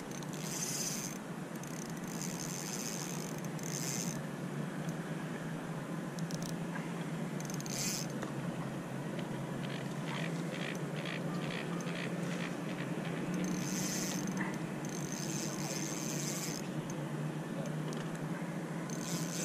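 Fishing reel clicking and buzzing in short spells while a hooked trout is played on a bent rod. About ten seconds in there is a run of evenly spaced clicks, about three a second. Steady wind and water noise lies underneath.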